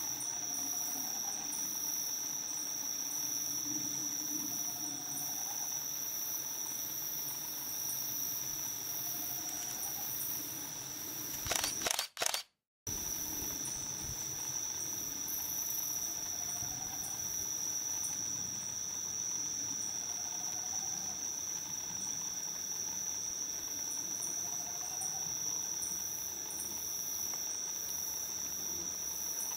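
Steady high-pitched drone of a night insect chorus, with faint short low calls every few seconds underneath. About twelve seconds in, a brief crackle is followed by half a second of dead silence.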